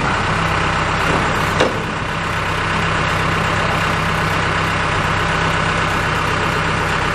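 Case skip loader's diesel engine running steadily while the front loader bucket is worked, with one brief click about one and a half seconds in.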